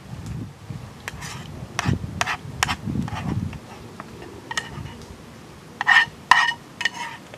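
A metal utensil scraping and knocking against a small camping cooking pot as spaghetti bolognese is scooped out of it onto a plate. A few sharper metallic clinks near the end ring briefly.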